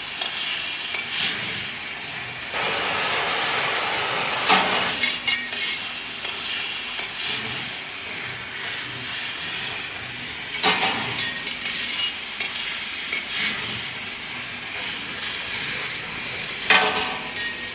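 Metalworking machinery running with a steady hiss, broken by sharp metallic clanks about every six seconds.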